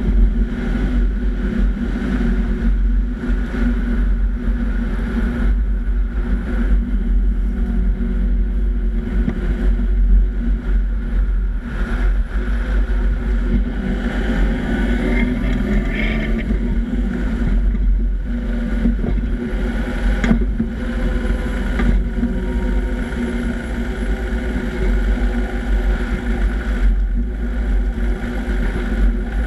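Nissan Patrol Y60 driving on a dirt road, heard from under the vehicle beside the rear axle. A steady rumble of tyres, road and drivetrain with heavy wind buffeting on the microphone, and a few brief knocks.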